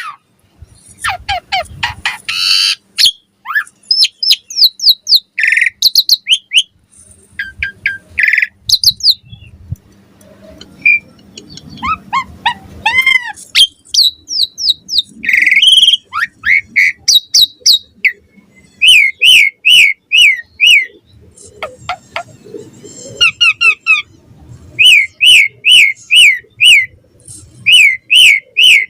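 Asian pied starling singing a loud, varied song of whistled notes and quick downward-sweeping chirps, broken by short harsh chatters. From about two-thirds of the way in, it turns to runs of the same clear note repeated about three times a second.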